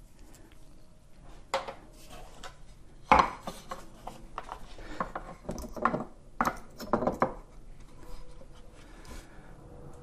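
Electric unicycle pedal being fitted by hand onto its metal mounting bracket: scattered clicks, knocks and rubbing. The sharpest knock comes about three seconds in, with a run of clicks between about five and a half and seven seconds.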